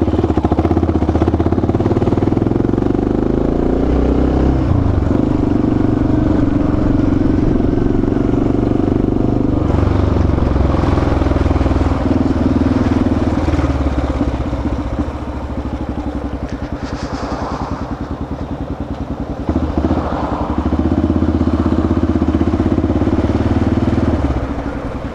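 Motorcycle engine running while riding, its pitch shifting a few times as the rider changes gear or eases off. It drops quieter for a few seconds past the middle, then pulls strongly again near the end.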